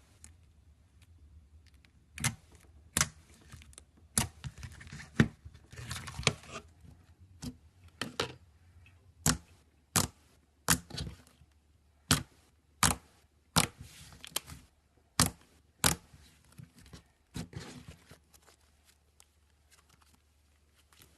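Slime being pressed and poked, making sharp wet clicking pops at an irregular pace of about one a second, with a longer crinkly, stretching sound between about four and seven seconds in. The pops stop near the end.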